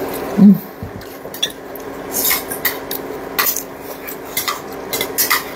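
Chopsticks and a spoon clinking against a ceramic bowl while eating, with one dull bump about half a second in and then scattered light clicks.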